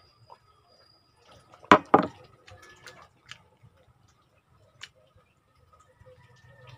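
A person drinking water from a glass, with two loud, sharp knocks in quick succession about two seconds in, followed by soft mouth clicks and small ticks of eating.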